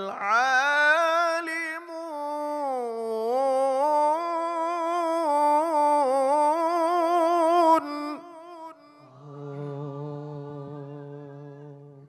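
A male Qur'an reciter's voice through a microphone, chanting one long melismatic held phrase in tilawah style, the pitch wavering in quick ornaments as it climbs and falls; it breaks off about eight seconds in. After a short gap a fainter, lower voice holds one steady note until near the end.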